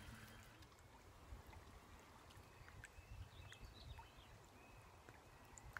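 Near silence: a faint low wind rumble with a few faint ticks.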